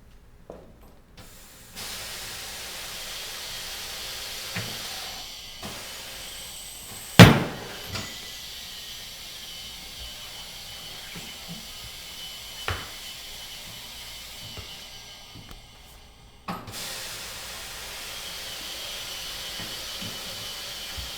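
Air-operated bead loosener of a BaseLine 200 tire changer working on a steel wheel's tire, with compressed air hissing steadily as the bead is pushed loose. One loud bang about seven seconds in, a few lighter knocks, and the hiss briefly stops and restarts near the end.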